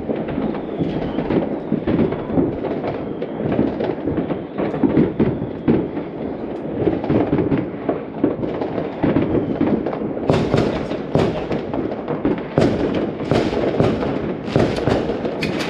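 New Year's fireworks going off all around: a continuous crackle of many small pops and low rumbling bangs, joined about two-thirds of the way through by louder, sharper bangs in quick succession.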